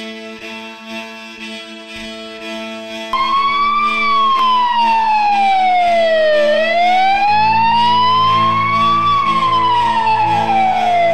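Ambulance siren wailing in slow rising and falling sweeps, starting about three seconds in, over steady sustained background music.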